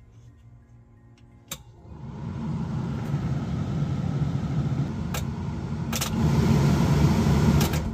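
A click, then the Toyota pickup running with a steady rushing mechanical noise from about two seconds in, stepping up louder after a second click a little after halfway, as its newly repaired electrics are tried out.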